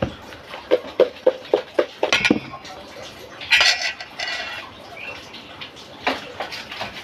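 Stainless steel mixing bowl clinking and scraping as hands and a spoon work the graham mixture inside it: a quick run of five or six light clinks, then a heavier clank, then a short scrape.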